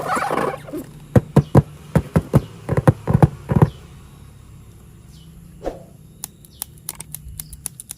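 Plastic toy train parts and packaging being handled: a quick run of sharp clicks and knocks, then a few lighter ticks near the end.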